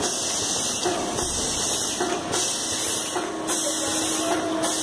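Rotary ice cream cup filling machine running: a steady pneumatic air hiss that swells and drops with each machine cycle, about once a second. A steady low hum joins about halfway through.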